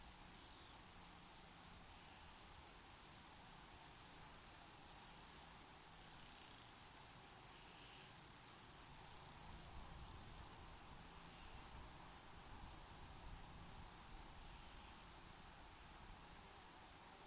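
A single cricket chirping faintly and regularly, about three short high chirps a second, fading out near the end, over a soft steady hiss of open air.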